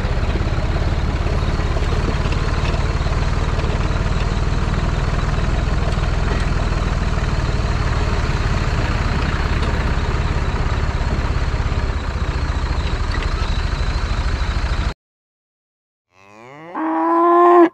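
Tractor diesel engine running steadily with a low, fast-pulsing rumble, cutting off abruptly about fifteen seconds in. Near the end comes a short call rising in pitch.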